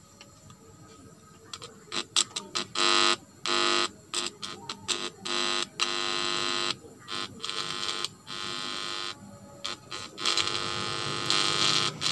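Small speakers driven by a mini amplifier board giving out a loud electrical buzz in abrupt on-off bursts, with crackling clicks, starting about a second and a half in as a 3.5 mm audio plug is handled at the amplifier's input: hum picked up through the unconnected input.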